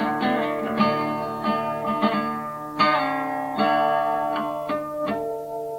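A guitar played in strummed chords struck roughly once a second, each chord left to ring and fade before the next.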